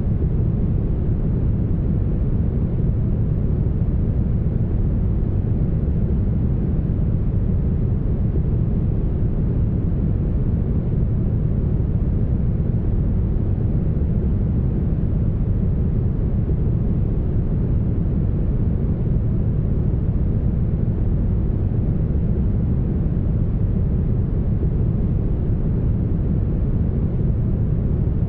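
Steady, smoothed brown noise: an even, deep hiss with most of its energy low down and the high end cut away, unchanging throughout.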